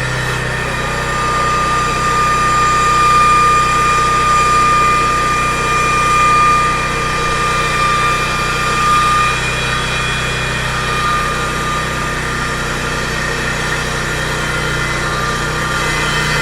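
Construction machine engine running steadily at idle, with a thin high whine that holds for several seconds and then fades.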